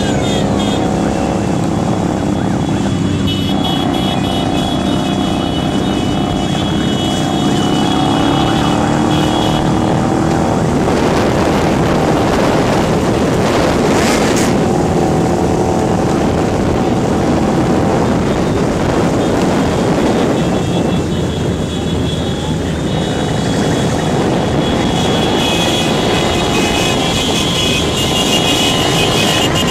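Several motorcycle engines running in a group ride, their pitch rising and falling with the throttle, over steady rushing wind noise from the riding bike.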